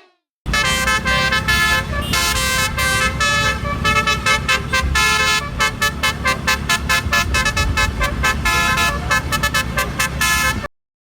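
A cartoon vehicle horn tooting a quick tune, with many short notes at changing pitches over a steady low rumble. It starts about half a second in and cuts off suddenly about a second before the end.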